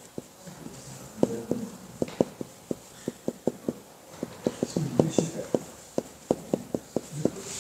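Marker on a whiteboard while writing: a string of quick, irregular taps, several a second, as the tip strikes and lifts off the board.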